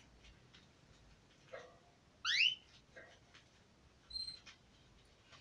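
Pet canary calling: one loud rising, sweeping call about two seconds in, then a short high steady chirp a couple of seconds later.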